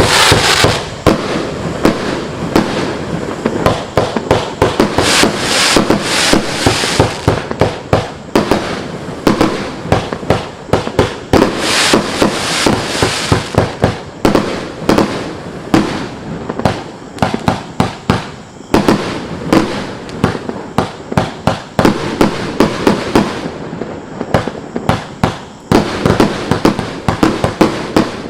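Mystic Bounce consumer firework going off continuously: a rapid, uneven string of pops and bangs over a steady crackling hiss, with a few short lulls.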